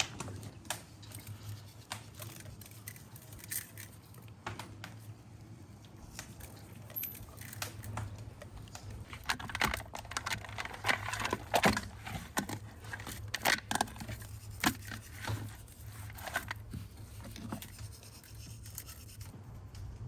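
Scattered clicks and small knocks with stretches of scraping and tearing, heaviest about halfway through, over a steady low hum.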